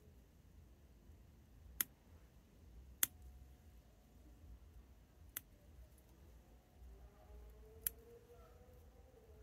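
Small bonsai trimming scissors snipping shoots off a conifer: four sharp clicks, a second or two apart, as the blades close on the stems.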